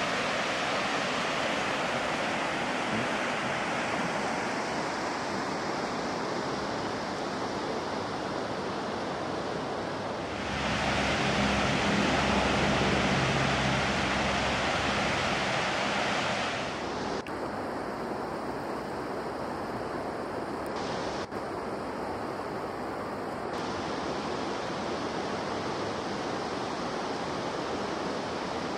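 Rushing water of river rapids, a steady noise that swells louder for several seconds in the middle. The sound breaks off abruptly a few times in the second half.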